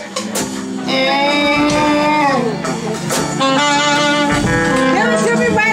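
Live soul band with saxophones playing two long held horn notes over a steady low accompaniment.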